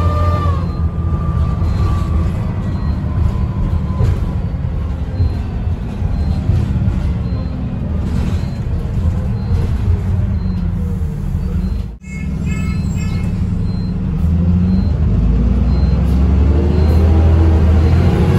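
Double-decker bus heard from inside the lower deck: the engine runs with a deep rumble while the drivetrain's high whine falls away as the bus slows. Near the end the whine climbs again in pitch as the bus pulls away. A brief break about two-thirds of the way through is followed by a short run of beeps.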